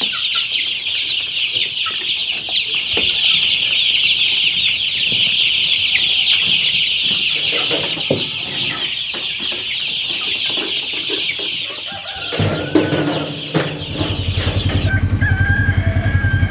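Many chickens calling at once, a dense high-pitched chatter of calls. About twelve seconds in, the calling thins out and a low engine starts running, steady near the end.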